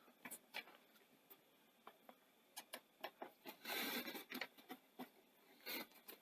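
Faint scattered clicks and taps of small parts and a screwdriver being handled while a part is screwed back onto a Betamax video recorder deck, with a short scratchy rustle about four seconds in.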